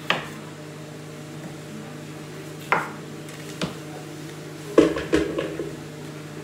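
Kitchen knife chopping potatoes on a wooden cutting board: about five sharp knocks of the blade striking the board, the last two close together, over a steady low hum.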